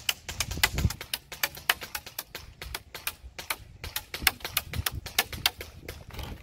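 Airsoft BBs striking a wooden fence in rapid, irregular sharp clicks and cracks, several a second, stopping near the end.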